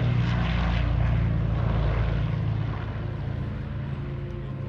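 Canadair CL-215 water bomber flying past on its two radial piston engines, a loud, steady propeller drone that fades from about two seconds in as the aircraft moves away.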